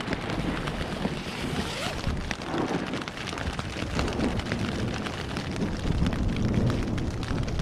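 Rain pattering on a tent with gusty wind rumbling on the microphone, steady throughout.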